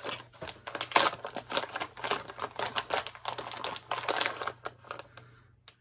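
Packaging crinkling and rustling by hand in a quick run of small crackles as a wrapped candle is unwrapped. It dies away near the end.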